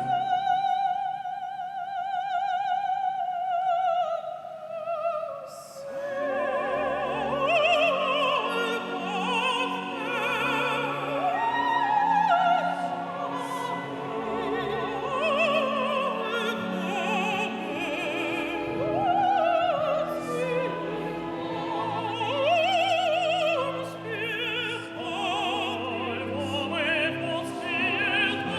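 Classical operatic singing with heavy vibrato over orchestral accompaniment. A long high note is held for about the first four seconds, then the voice moves through a melodic line above sustained orchestral tones.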